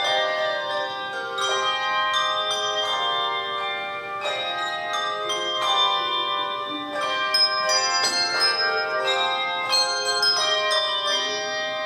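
Handbell choir playing a piece: chords of handbells are struck together every half second to a second and a half, each left to ringing on over the next.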